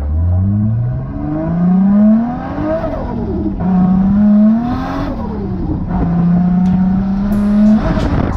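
Toyota Chaser JZX90's straight-six engine under hard throttle, heard from inside the cabin. The pitch climbs steeply from low revs, falls back twice as the revs drop, then holds high and steady near the end.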